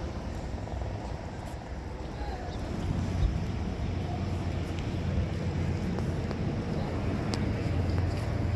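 Road traffic on the highway bridge, a steady rushing noise with a low engine hum that grows louder through the second half.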